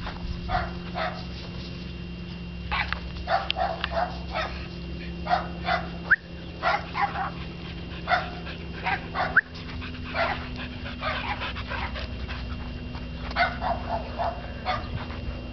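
Australian Shepherd barking and yipping in short sharp bursts that come in clusters, with a couple of quick rising squeaks, over a steady low hum.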